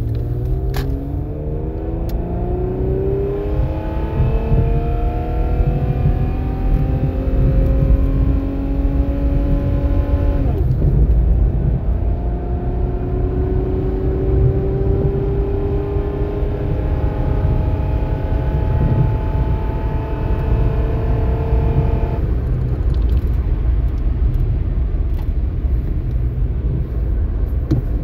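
2000 Toyota Avalon's 3.0-litre V6 accelerating, heard from inside the cabin. The engine note climbs steadily in pitch, drops as the automatic transmission upshifts about ten seconds in, climbs again, and drops at a second upshift about twenty-two seconds in. The exhaust is still running through a badly clogged catalytic converter.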